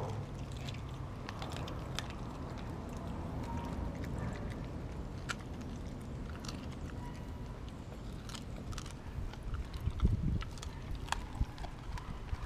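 Dogs chewing and crunching raw whole fish, with irregular sharp crunches and a louder thump about ten seconds in.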